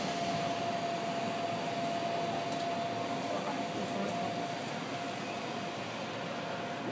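Steady interior hum of a stopped Iyotetsu 3000-series electric train car, with one thin, steady whine running through it.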